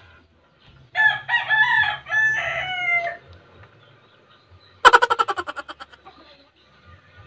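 A rooster crows once, a drawn-out call in several rising and falling parts. About two seconds later comes a loud rapid rattle of clicks that fades out within a second.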